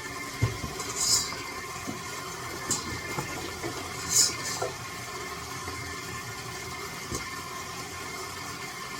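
A steady machine hum, with three brief hissing rustles and a few light knocks.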